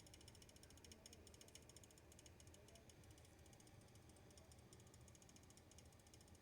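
A computer rattling: a faint, fast ticking over a steady low hum.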